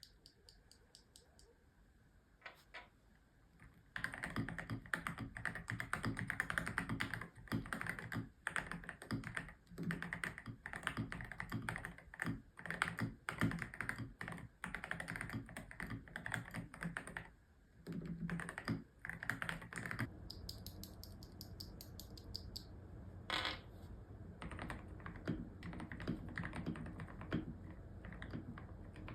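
Typing on a custom-built mechanical keyboard: a few scattered key clicks, then about four seconds in fast, dense clacking keystrokes with brief pauses. The typing goes lighter and quieter for the last third.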